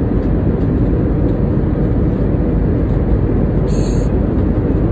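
Steady cabin noise of an airliner in flight, a low, even noise of engines and airflow. A short high hiss comes in about four seconds in.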